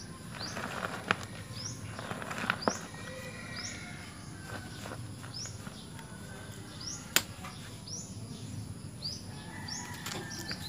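Hands handling a potted coconut bonsai: soft rustles and a few sharp clicks, the loudest about a second in, another at two and a half seconds and one near seven seconds. Behind them a bird chirps over and over in short rising notes, over a steady high insect whine.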